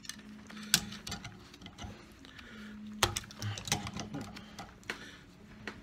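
Hand ratchet clicking in uneven runs, with metal-on-metal knocks, as a bolt is turned to draw the old rubber bushing out of a VW Super Beetle lower control arm clamped in a vise. A sharper knock comes about a second in and another about three seconds in.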